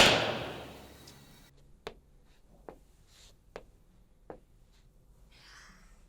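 A door shuts with a loud bang that rings out and fades over about a second, then slow, evenly paced footsteps click away, about one step every 0.8 seconds.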